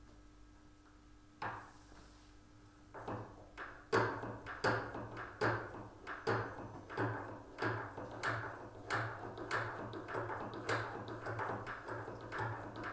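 Oboe reed profiling machine (Außenhobelmaschine) shaving cane: the blade carriage is pushed back and forth by its wooden knob, giving even scraping strokes about one and a half a second. A click or two as the carriage is set in place comes before the strokes begin.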